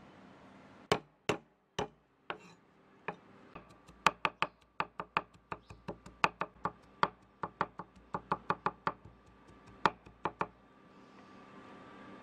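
A steel cleaver chopping garlic on a wooden chopping board. A few separate strikes come first, then a quick, even run of chops at about four a second, which stops shortly before the end.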